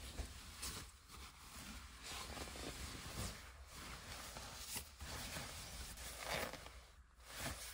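Nylon sleeping bag rustling and swishing as it is shaken out and spread over the bed, with a few louder swishes near the end.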